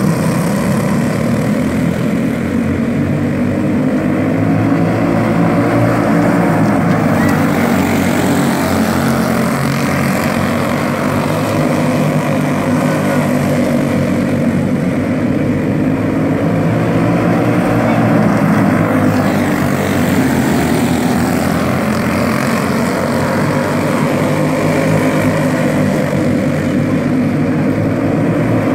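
Several racing go-kart engines running hard around a dirt oval, a continuous high-revving buzz that swells and eases as the pack comes around.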